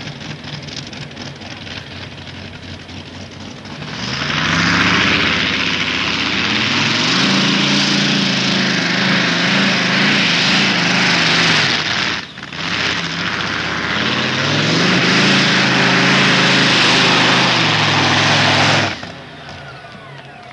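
Modified pulling tractor's engine, fitted with chrome intake stacks, at full throttle under load. It runs lower for the first few seconds, then gets loud about four seconds in with its pitch climbing. It dips briefly about twelve seconds in, climbs and holds again, and cuts off sharply near the end.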